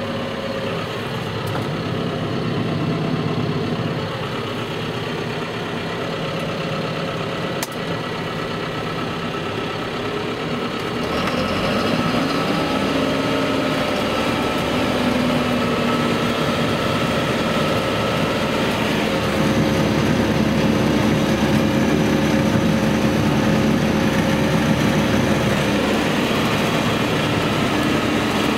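John Deere 6430 tractor's six-cylinder diesel running steadily, heard from inside the cab, driving a John Deere CX15 flex-wing rotary cutter that is shredding corn stalks. About eleven seconds in the engine note rises and gets louder, and there is a single click a little before that.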